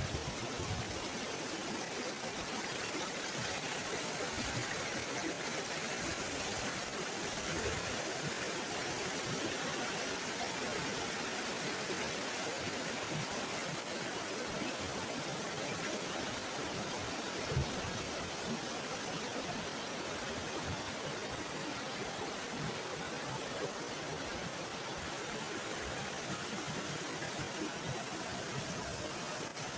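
Steady rush of river water flowing just upstream of a weir, with a brief low thump about two thirds of the way through.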